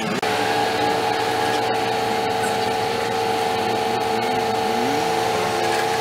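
An engine running at a steady speed with a constant, unchanging whine.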